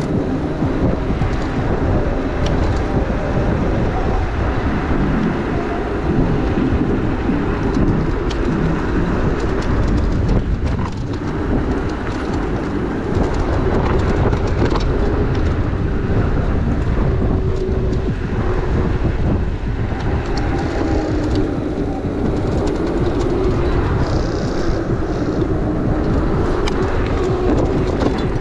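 Riding noise from an electric motorbike on the move: wind rushing over a GoPro's microphone with steady tyre and road rumble, under a faint wavering hum.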